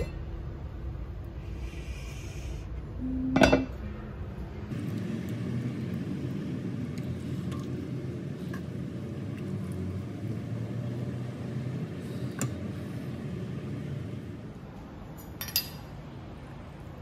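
A few scattered clinks of kitchenware: the lid of an enamelled cast-iron pot, a ladle in the pot and a spoon against a ceramic bowl. The clearest is a sharp clink about three and a half seconds in. Between the clinks there is a low steady background.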